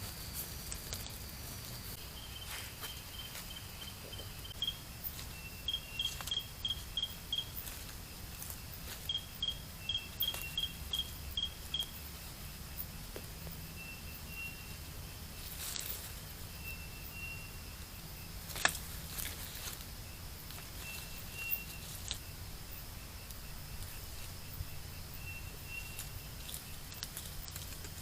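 Outdoor ambience with short, high chirps repeated in quick runs of about five to eight, typical of a calling insect, over a steady low hum. A few sharp clicks are also heard.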